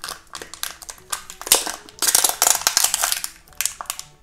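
A surprise-toy wrapper being crinkled and torn open by hand: a run of crackles and clicks, densest about two seconds in.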